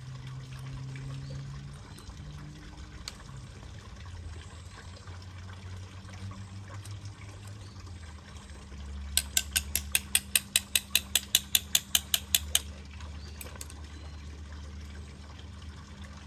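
A quick run of about twenty sharp mechanical clicks, roughly six a second, lasting about three seconds from nine seconds in, over a low steady hum.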